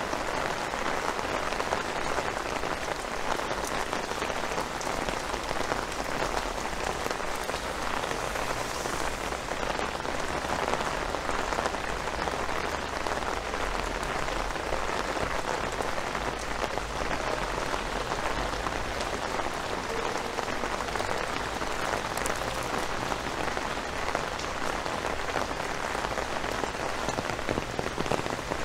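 Steady rain falling, a dense run of close drop impacts without a break, over a low rumble.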